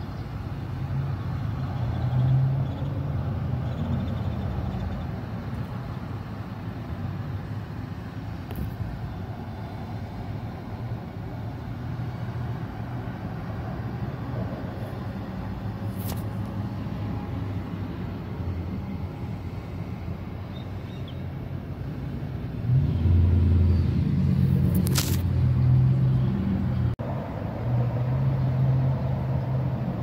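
Low, steady rumble of a motor vehicle engine running, growing louder for a few seconds about three-quarters of the way through, with a few sharp clicks.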